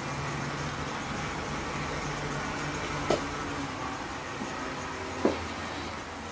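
Brass HO-scale model steam locomotive running under power, its electric motor and gear drive giving a steady whirring hum. Two sharp clicks stand out, about three seconds in and again about two seconds later.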